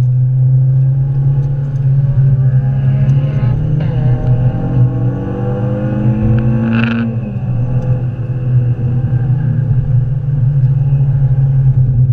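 Renault Clio 182's 2.0-litre four-cylinder engine heard from inside the cabin at full throttle, rising steadily in pitch for a few seconds and then dropping sharply at a gear change about seven seconds in, over a constant low drone.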